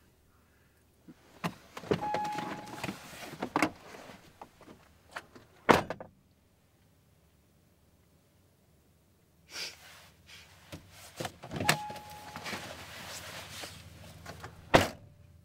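Car doors being opened and shut twice: a latch click, rustling as someone climbs out, a brief electronic beep, then a solid slam, the first about six seconds in and the second near the end.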